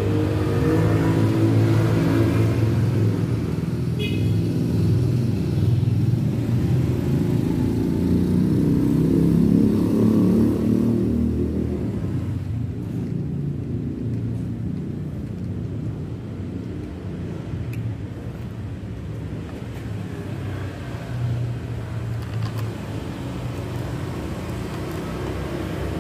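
A motor vehicle's engine running close by, its pitch rising and falling for the first ten seconds or so, then settling into a quieter, steady rumble.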